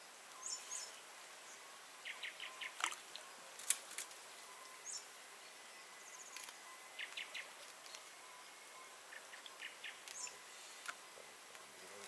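Faint outdoor evening ambience by a pond: scattered bird calls, short high chirps and quick runs of a few notes, over a low steady hiss. There are a couple of sharp clicks about three and four seconds in.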